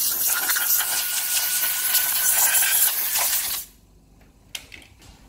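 Air blower blowing the amplifier's circuit board clean of metal filings and wire scraps, a loud steady hiss that cuts off suddenly about three and a half seconds in.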